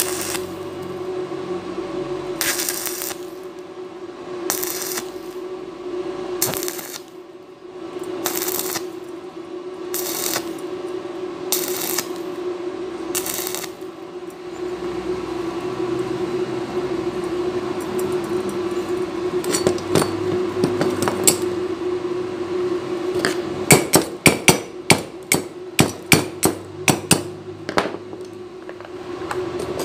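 Stick-welding arc crackling on thin 1.5 mm steel square tube, struck in short bursts about every one and a half to two seconds: the stop-start stitching that keeps thin metal from burning through. A steady hum runs underneath, and in the last few seconds, with the arc off, comes a run of about ten sharp metallic taps.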